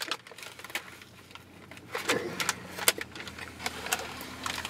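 A bite into a flatbread sandwich and chewing, with its paper wrapper rustling and crinkling in a run of sharp crackles. A low steady hum runs underneath.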